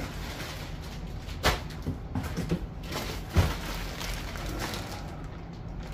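Plastic bags of packaged bait rustling as they are handled and lifted out of a cardboard box, with a sharp knock about a second and a half in and a heavier thump a couple of seconds later, over a steady low hum.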